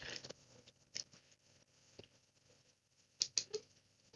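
Faint, scattered clicks of computer keys and mouse buttons: single clicks about one and two seconds in, then a quick run of three near the end.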